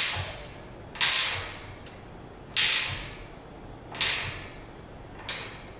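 Five short scraping strokes from hand work at the foot of a steel stair-railing post, one every second or so, each starting sharply and fading quickly.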